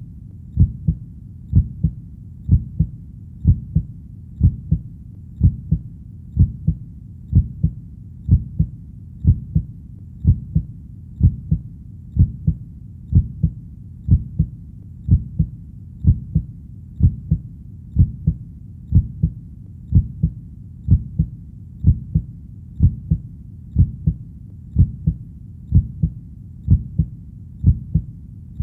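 A human heartbeat beating steadily at a little over one beat a second, each beat a low double thud (lub-dub), over a constant low background hum.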